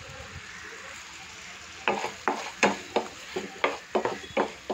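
Thick, nearly dry chicken masala sizzling in a metal pan; from about two seconds in a spatula stirring it, scraping and clacking against the pan about three times a second.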